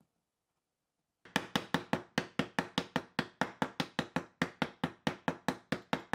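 A mallet tapping an oak dovetail joint together: quick, evenly spaced knocks, about five a second, starting about a second in and stopping near the end.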